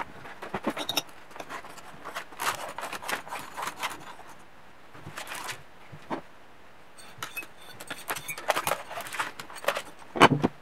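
Small machined aluminium parts and a wire being handled and fitted into an aluminium servo wire-puller housing: irregular light metal clicks, clinks and scrapes on a wooden bench, with a louder knock near the end.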